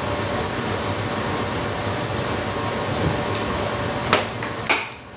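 Steady rushing noise of a running electric appliance, fan-like. Two sharp clicks come near the end, and then the noise dies down.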